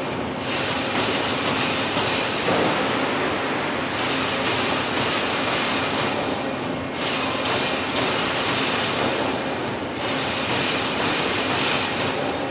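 Wire fence-making machine running in a factory, a loud, dense mechanical noise whose upper hiss eases off briefly every three seconds or so.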